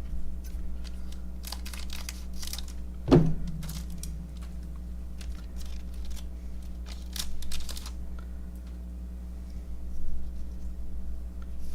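Baseball card packs and cards being handled: crinkling, rustling and light tearing for the first several seconds, with one sharp thump about three seconds in, then only a few soft knocks.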